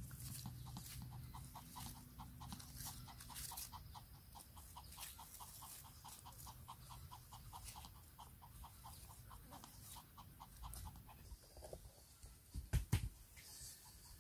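Small dog panting rapidly and evenly, about four breaths a second, while leaves rustle as a leaf bandage is wrapped around its leg. The panting stops about 11 seconds in, and a few dull thumps come near the end.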